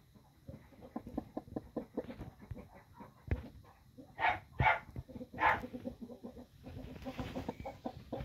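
Broody hen clucking in a run of short, soft clucks, with three louder clucks about halfway through, as she sits over the kittens beneath her.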